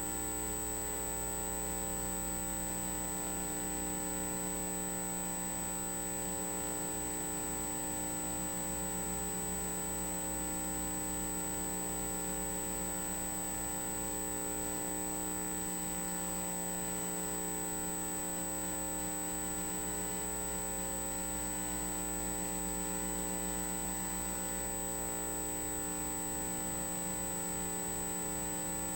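Steady electrical hum made of several constant tones, with a thin high-pitched whine above it.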